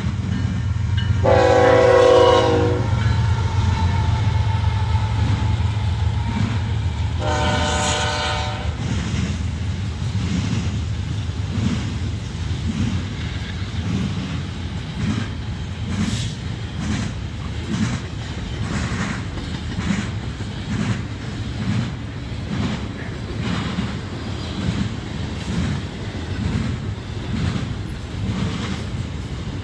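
Freight locomotive horn sounding two long blasts about five seconds apart as a double-stack container train comes through, over a low diesel rumble. As the loaded well cars pass, their wheels clack on the rails in an even rhythm.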